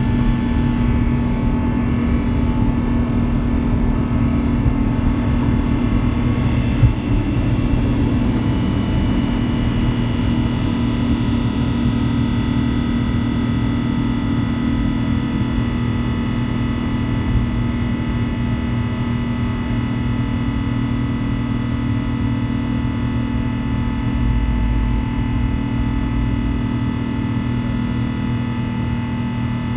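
Rolls-Royce Trent XWB turbofan of an Airbus A350-900 at take-off thrust, heard inside the cabin through the take-off roll and initial climb: a steady roar with a whine of several held tones over it. A single knock about seven seconds in.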